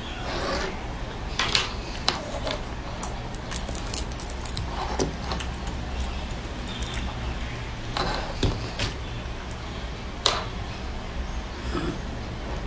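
Lychee rinds crackling and snapping as they are peeled by hand, with a few sharp clicks standing out, over a steady low hum.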